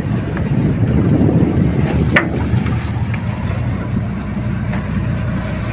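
A small boat's engine running steadily with a low, rapidly pulsing rumble, and a single sharp knock about two seconds in.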